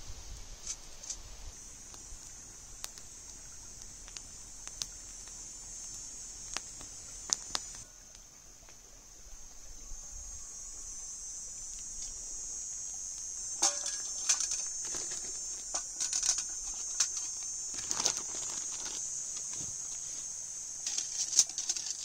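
Light metallic clicks and clatter of a folding metal camp grill being unfolded and handled, with a pan set on it, over a steady high hiss.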